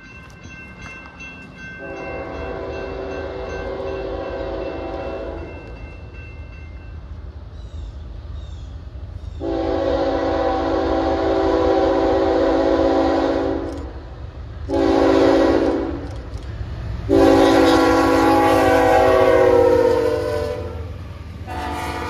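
Air horn of Norfolk Southern ES44AC locomotive 8102 (Pennsylvania Railroad heritage unit) sounding the grade-crossing signal: long, long, short, long. The last long blast drops in pitch as the locomotive passes. Underneath, the rumble of the approaching train's engines grows louder.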